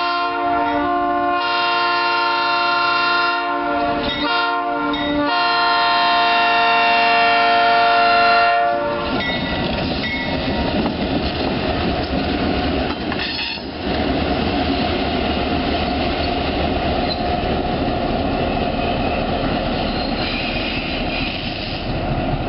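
EMD GP7 diesel locomotive's multi-chime air horn sounding for the road crossing in several blasts, the last one long and growing louder. About nine seconds in the horn stops and the locomotive rolls across the crossing close by: its 16-cylinder EMD 567 diesel engine running, with wheels clattering over the rails.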